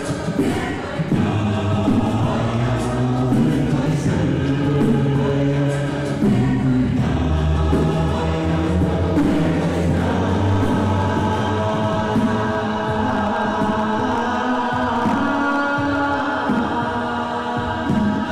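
A group of voices singing together in an improvised, chant-like way, with long held low notes under layered higher parts that keep shifting.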